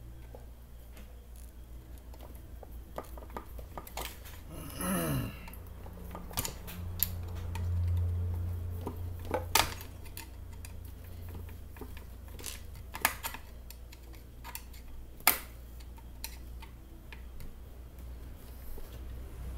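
Small metal clicks and taps of a screwdriver working the screws and clip of a Bosch drill's carbon-brush holder, scattered irregularly, over a steady low hum that swells for a couple of seconds around eight seconds in.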